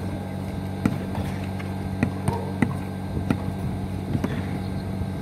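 Basketball bouncing on a concrete court: short sharp thuds at irregular intervals, about six in a few seconds, over a steady low hum.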